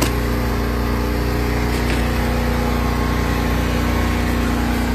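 An engine running steadily with an even hum and no change in speed.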